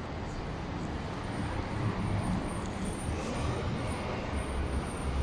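Street traffic: a steady low engine rumble from vehicles, growing a little louder near the end.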